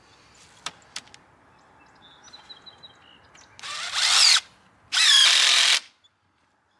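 Cordless drill driving screws into wooden trellis poles: two short runs of the motor, about a second each, the first rising in pitch as it spins up. There are two sharp knocks about a second in.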